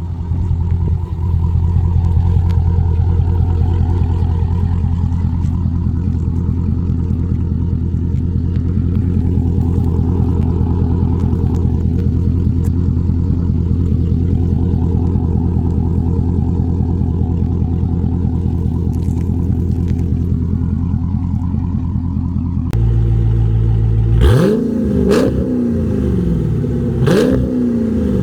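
Car engine through an aFe aftermarket exhaust, heard from inside the cabin: a loud, steady low drone at constant speed. Near the end the engine note changes, with revs sweeping up and down and a couple of sharp knocks.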